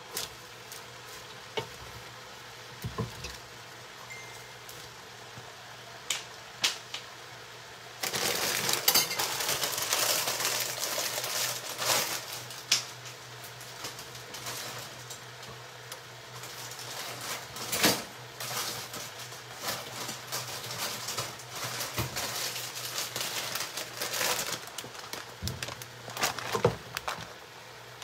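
Shredded cabbage and vegetables cooking in a large stainless steel pot: sizzling, with the scrape and knock of a wooden spatula stirring them. It starts quiet with a few scattered knocks and gets louder about a third of the way in.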